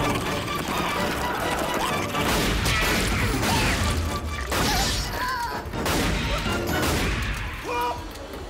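Film action soundtrack: dramatic score mixed with crashes and hits, with a few short squealing cries about halfway through and near the end.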